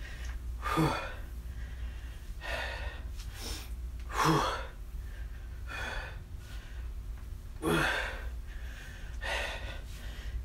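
A man breathing hard during a workout: forceful exhalations, some with a short grunt, coming about every second and a half over a low steady hum.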